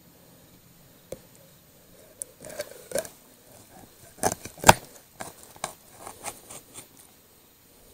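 Knife cutting up a pike: an uneven string of short crunches and knocks as the blade goes through flesh and bone, the loudest about four and a half seconds in.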